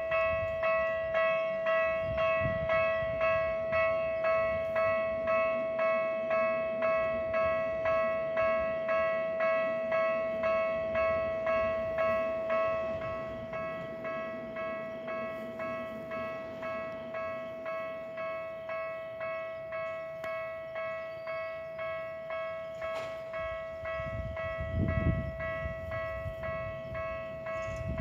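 Japanese railway level-crossing warning bell ringing a steady, evenly repeated ding, which turns quieter about halfway through. Near the end the low rumble of an approaching Tokyu Meguro Line train comes in under the bell.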